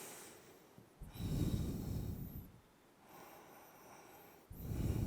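A person breathing deeply and audibly while holding a back-bend yoga pose: a long breath about a second in, a fainter one after it, and another strong breath starting near the end.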